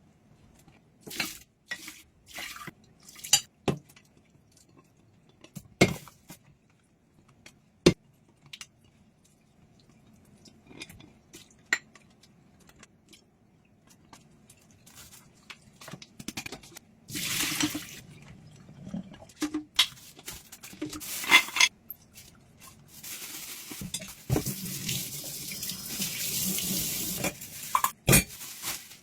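Dishes being washed at a kitchen sink: scattered clinks and knocks of crockery and cutlery for the first half, then the tap running in short bursts and finally steadily for about five seconds near the end.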